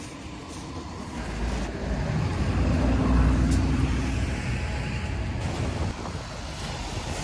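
Road traffic: a car passes, loudest about three seconds in, with wind rumbling on the microphone.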